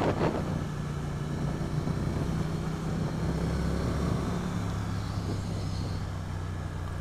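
Triumph Street Twin 900's 900 cc parallel-twin engine running at a steady cruise, heard from the rider's seat with wind rush over it.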